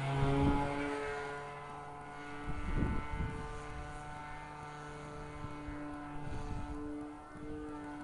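Radio-controlled model airplane's O.S. .40 nitro glow engine running in flight overhead: a steady buzzing drone with small shifts in pitch. A brief low rumble about three seconds in.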